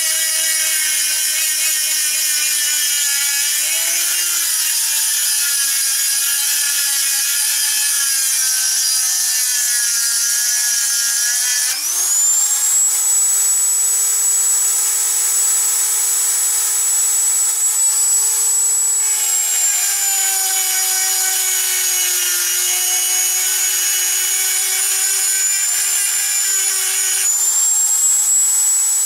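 Handheld rotary tool with a small grinding stone, its motor whining steadily as it grinds a steel knife blank. About twelve seconds in the whine jumps up in pitch and stays higher, sagging a little later on.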